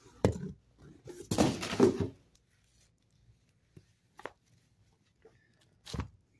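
Packing materials and comic books being handled: a sharp tap, a second of rustling, then a few light knocks and a thud near the end as a stack of comics is set down on a foam packing sheet.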